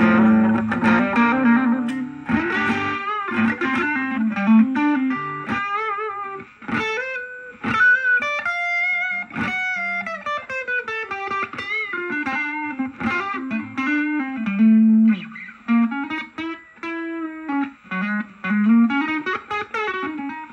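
Electric guitar played through a Vox VR30 combo amp on its overdrive channel: a few driven chords, then single-note lead lines with string bends and vibrato.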